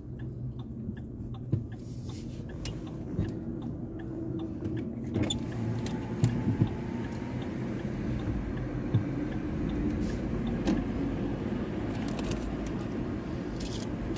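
Inside a moving car: steady engine and tyre road noise, growing gradually louder as the car picks up speed, with a few light clicks and knocks.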